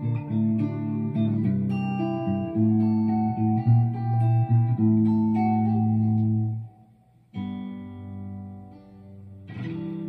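Telecaster-style electric guitar playing plucked notes and chords over ringing bass notes. About two-thirds of the way in the sound cuts off almost entirely, then a chord rings and fades, and another chord is struck near the end.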